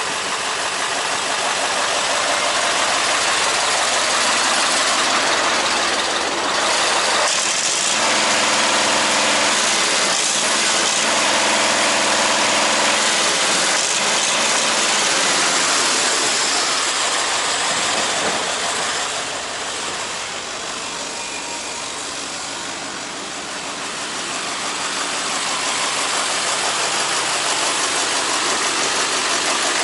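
Mercedes-Benz SK 2628 truck's V8 diesel engine running steadily, turning quieter for a few seconds about two-thirds of the way through.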